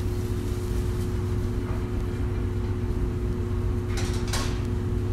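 A steady low mechanical hum, with two quick knocks about four seconds in as a frying pan is set down on an electric coil burner.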